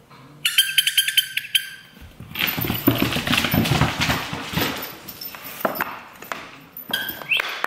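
A puppy's claws scrabbling and clicking on a hardwood floor as it dashes after a thrown ball, after a quick run of high squeaks about half a second in. A short rising whistle comes near the end.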